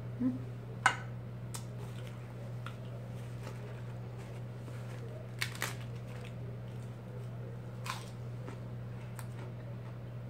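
A few short, sharp clicks and smacks from eating and from handling lettuce leaves at the table, the loudest about a second in, over a steady low hum.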